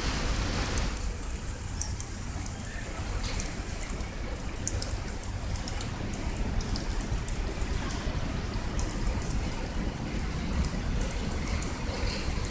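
Steady rain falling on garden plants and grass, with many sharp ticks of drops striking and a low rumble underneath.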